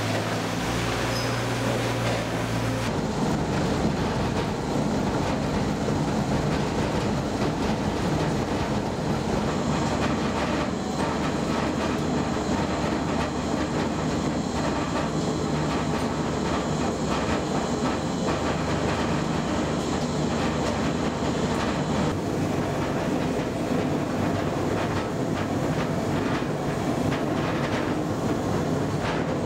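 WEIMA FineCut 2500 industrial shredder with a 250 kW drive running under load, grinding mixed construction and commercial waste: a dense, steady mechanical rumble with many small knocks. A low steady hum in the first few seconds gives way to heavier grinding noise.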